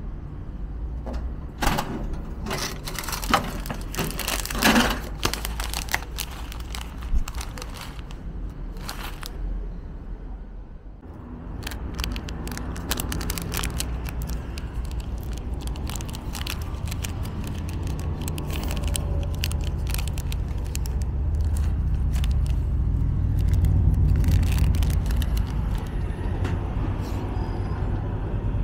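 Clicks and knocks from a snack vending machine dispensing. After that, a plastic snack wrapper is torn open and crinkled by hand over a steady low rumble of road traffic that swells past about two-thirds of the way through.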